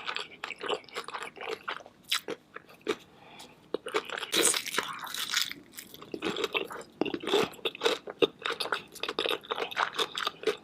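Close-miked biting and chewing of crunchy food: a dense run of crackling crunches, busiest from about four seconds in.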